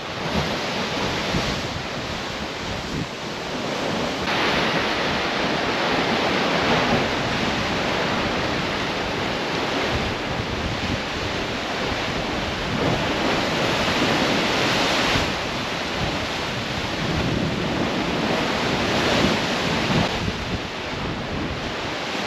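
Rough ocean surf breaking and washing against rocky cliffs, swelling louder several times as waves come in, with wind buffeting the microphone.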